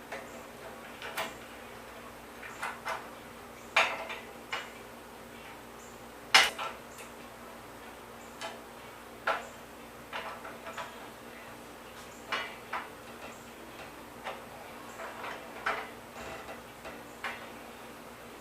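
Irregular light metallic clinks and taps of hand tools and small metal parts being handled while an old bicycle is taken apart, with one sharper clank about a third of the way through.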